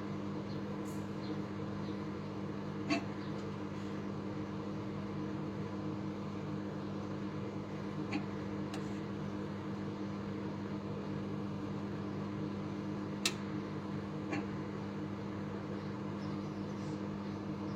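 Microwave oven running with a steady hum, with a few sharp ticks scattered through it.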